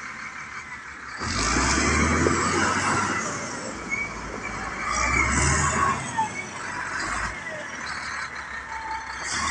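Diesel engine of a wheel loader running, growing louder twice: once about a second in and again around five seconds, as the machine moves across the yard.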